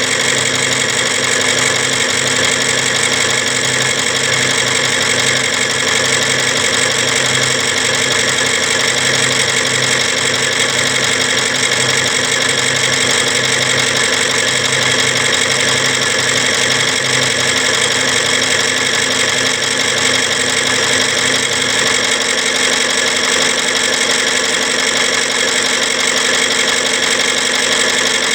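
Machinery running steadily: a loud, even engine-like hum made of several steady tones. A low part of the hum drops out about 22 seconds in while the rest runs on.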